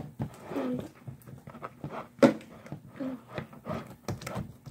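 Spatula knocking and scraping irregularly against a bowl while glue and Tide detergent are stirred into slime, with a few short pitched sounds among the knocks.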